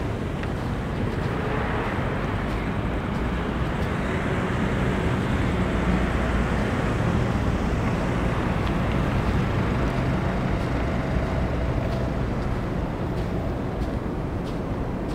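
Street traffic: a motor vehicle's engine and tyres rumbling past, growing louder through the middle and easing off toward the end.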